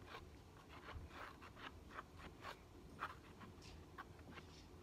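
Faint, irregular scraping and light ticks of a stirrer working slime around the inside of a cup, a few strokes a second, while the slime is mixed.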